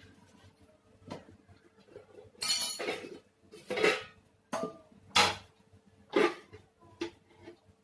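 Kitchen dishes and utensils clinking and clattering: about seven separate knocks with a short ring, the loudest about two and a half seconds in.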